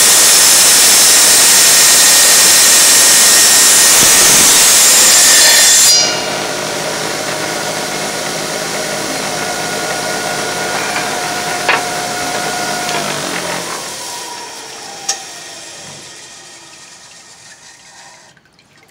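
Tile saw blade cutting through a tile, a loud grinding hiss that stops about six seconds in as the cut finishes. The saw motor then runs freely with a steady hum and whine until it is switched off, winding down and fading out near the end.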